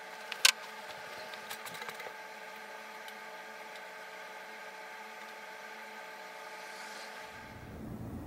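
Steady background hum made of several pitched tones, with one sharp click about half a second in and a few faint ticks after it. Near the end the hum turns to a duller, lower rumble.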